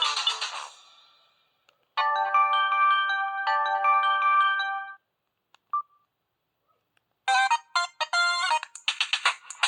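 Samsung cell phone ringtones playing one after another. One tune fades out, then a short electronic melody plays for about three seconds. A single brief beep follows, and after a pause a faster, choppier ringtone starts near the end.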